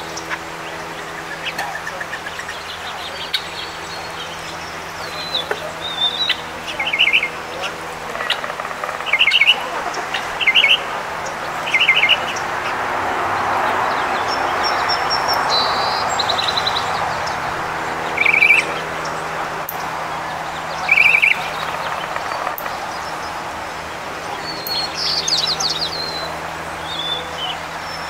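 Small songbirds chirping: a run of short chirps about once a second, two more spaced out later, and higher thin calls here and there. Under them is a steady low hum, and a soft rushing noise swells and fades in the middle.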